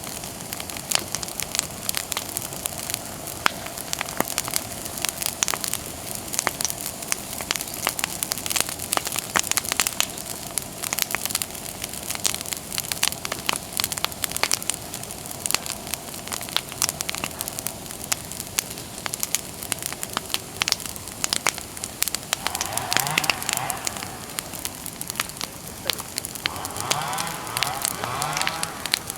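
Bonfire of freshly cut persimmon wood crackling and popping steadily, with many sharp snaps. Faint voices come in briefly near the end.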